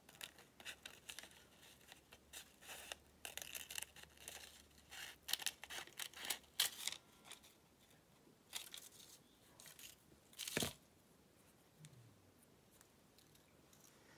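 Small scissors snipping through fabric and paper in short, irregular cuts, mixed with paper rustling as the pieces are handled. One sharper knock comes late on.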